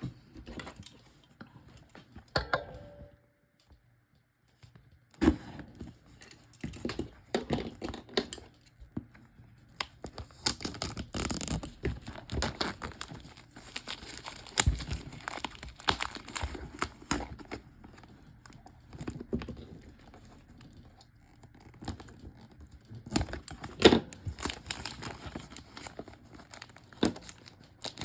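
Plastic wrap being torn and peeled off a cardboard trading card display box, with irregular crinkling, crackling and handling clicks. After a few quiet seconds it continues in uneven bursts, with one sharp, loud crackle about three quarters of the way through.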